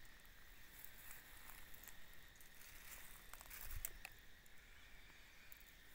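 Near silence: a faint steady hiss with a few soft clicks.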